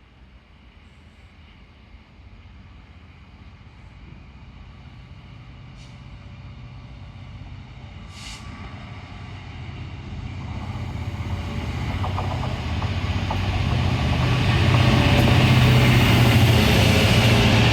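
Diesel train approaching, its engine hum and rail noise growing steadily louder over about fifteen seconds.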